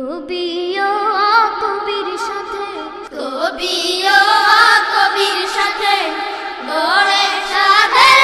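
Bengali Islamic gazal: a high voice singing a wordless, ornamented melody that slides up and down in pitch, with a short break about three seconds in.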